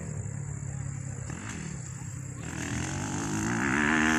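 Motocross dirt bike engine running on the track, its pitch wavering up and down with the throttle, getting louder from about halfway through as the bike comes closer.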